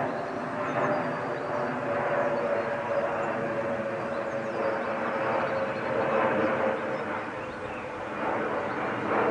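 Steady distant vehicle drone whose tone slowly falls in pitch, over an even rushing background, with faint bird chirps.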